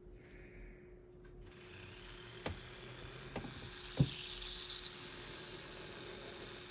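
HO slot car 4-gear chassis motor running on a weak 9-volt battery, spinning its freshly lubed gears with a steady high-pitched buzz that starts about a second and a half in. Three light clicks come in the first few seconds of running.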